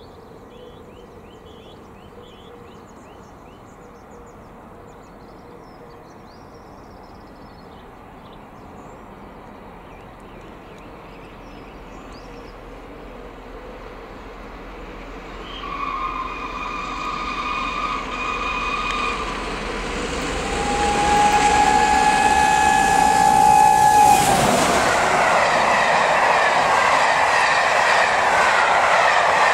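LNER A1 Pacific steam locomotive 60163 Tornado approaching at about 90 mph. A rumble builds out of quiet, then two long whistle blasts sound, the second falling in pitch as the engine passes. A loud rush of the locomotive and its train at speed follows.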